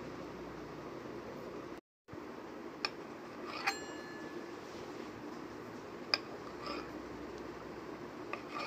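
A knife clinking sharply on a steel worktop about five times as it cuts through a rolled log of dough, one clink about four seconds in ringing briefly, over a steady low hum.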